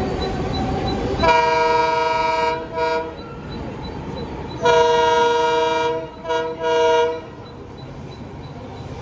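Diesel locomotive's air horn sounding as the train approaches, after a rumble in the first second or so. The horn gives a long blast and a short toot, then a second long blast and two short toots, at a steady pitch.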